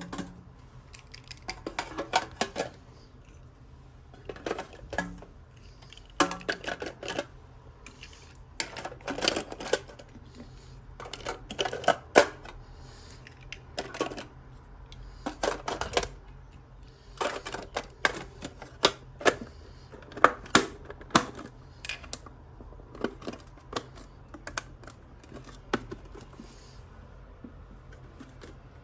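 Small plastic toy pieces and packaging being handled, giving clusters of sharp clicks and taps every second or two.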